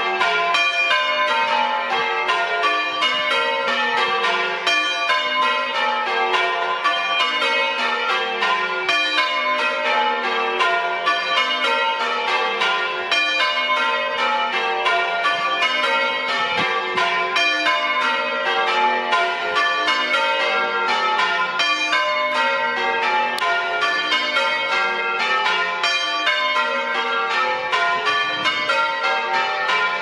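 Church tower bells rung full circle by ringers pulling ropes: a steady, loud stream of strikes, one bell after another in repeated descending runs, the notes overlapping as they ring on.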